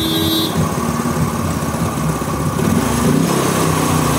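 Yamaha Fascino scooter's single-cylinder engine idling just after starting, following a carburettor clean meant to cure its misfiring. It runs a little louder from about three seconds in.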